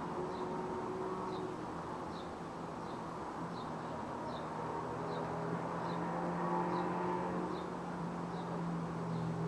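City ambience: a steady hum of distant traffic, with a small bird giving a short high chirp over and over, about once every three-quarters of a second.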